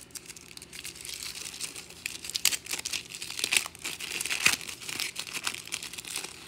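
Trading-card pack wrapper crinkling and tearing as it is opened by hand, a run of crackles loudest in the middle.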